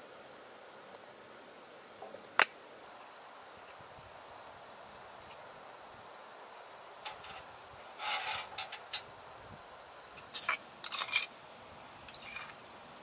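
Steady insect chirring, crickets with a faint high trill, under a few sharp clicks and clatters of cooking things being handled: one sharp click about two seconds in, a short rattle later on, and the loudest clattering shortly before the end.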